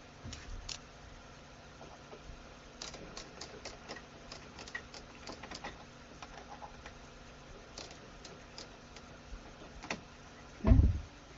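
Light scattered clicks and ticks of small steel hold-down screws being handled and repositioned on an aluminium part, then a heavier low thump near the end.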